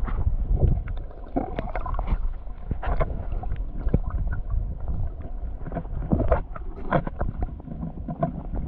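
Flowing river water heard underwater: a muffled low rushing rumble with frequent irregular clicks and knocks.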